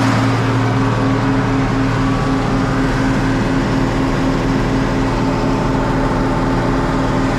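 Tractor engine running steadily at a constant speed, a loud even drone with no change in pitch.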